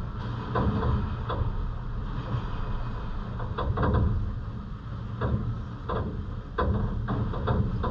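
Rainy city ambience: a steady low rumble of wind and distant traffic, with irregular sharp taps of raindrops striking close to the microphone.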